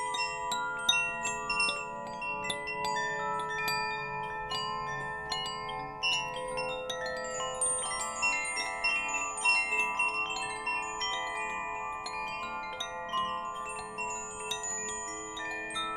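Wind chimes ringing: many irregular, overlapping strikes at several pitches, each note ringing on long after it is struck.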